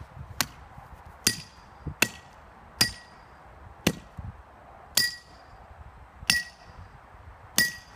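A series of eight hard blows, about one a second, smashing an iPhone 4 to pieces. Each strike is sharp and carries a short metallic ring.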